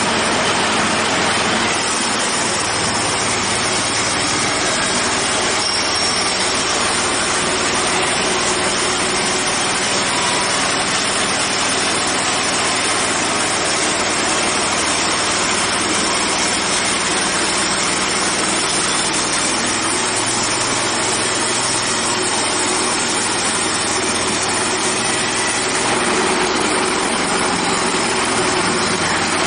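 Portable band sawmill running: its engine and band saw blade make a loud, steady, even noise with no pauses.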